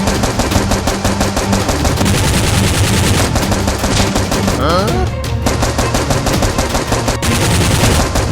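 Rapid automatic gunfire, long continuous bursts of many shots a second, over background music with a steady bass line.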